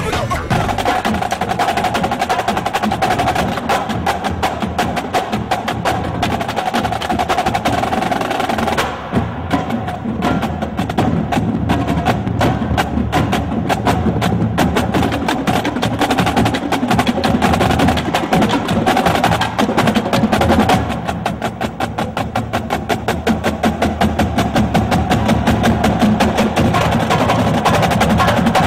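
Music carried by fast percussion: a rapid, dense run of sharp strikes, many per second, that grows crisper and more distinct about a third of the way in and again near the last third.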